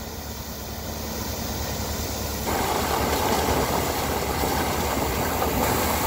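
An engine running hard and steadily, growing louder over the first couple of seconds and stepping up again about two and a half seconds in.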